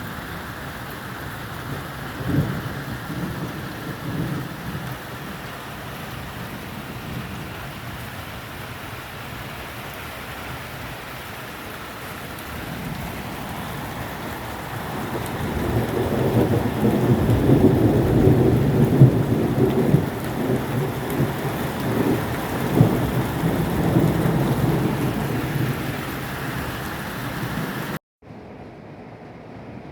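Steady rain falling through a thunderstorm. A short thunderclap comes about two seconds in, and about halfway through a long rolling rumble of thunder builds, peaks and slowly fades. Near the end the sound cuts off abruptly to a quieter hiss.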